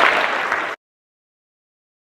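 A large audience applauding, cut off abruptly under a second in, followed by dead silence.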